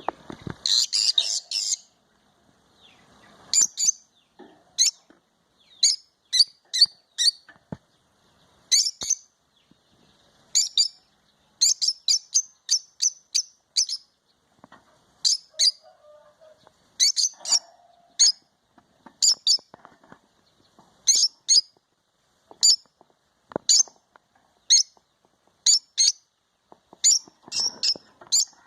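A bird chirping over and over: short high-pitched calls, some single and some in quick runs of several, with pauses between.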